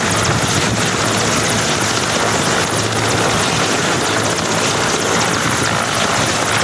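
Mil Mi-17 helicopter running on the ground with its main and tail rotors turning. Its twin turboshaft engines and rotors make a steady, loud rush and whine with a low hum underneath.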